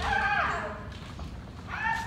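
Kendo kiai shouts from players sparring in the hall: a drawn-out shout falling in pitch and fading, then another shout starting near the end.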